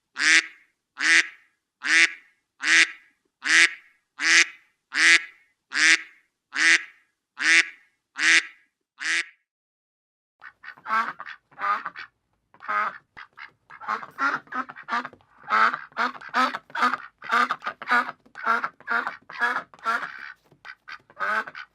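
Ducks quacking. First comes a steady run of single loud quacks, about one every three-quarters of a second. After a short pause about nine seconds in, many quacks follow, coming fast, uneven and overlapping, as from several ducks at once.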